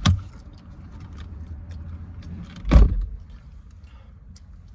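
Two dull thumps inside a car cabin, one right at the start and a louder one about three seconds in, over a steady low rumble. Faint clicks of someone chewing and smacking on chicken wings fall between them.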